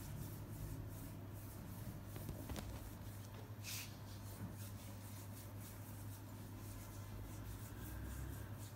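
Faint rustling and scratching of a kitten's paws on a woven bedspread as it bats a small pom-pom ball, with one brief louder scrape about four seconds in. A steady low hum runs underneath.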